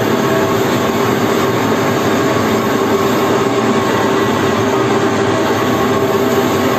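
Wood pellet mill running with a loud, steady mechanical noise and a constant hum.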